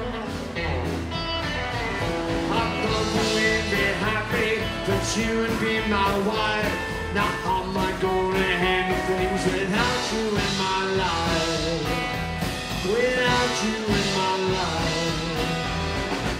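Live rockabilly band playing: electric and acoustic guitars, upright double bass and drums, with steady drum hits throughout.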